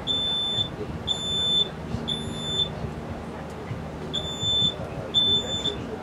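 Smoke alarm sounding its three-beep pattern: three high-pitched beeps about a second apart, a pause, then three more. It was set off by smoke from potatoes burnt in a microwave left running 80 minutes instead of 8.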